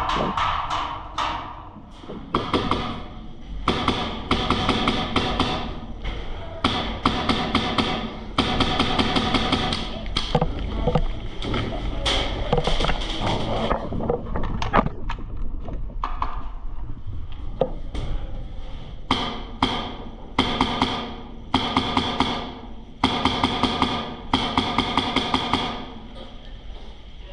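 Airsoft guns firing on full auto in short rapid bursts, one burst after another, with brief pauses between them.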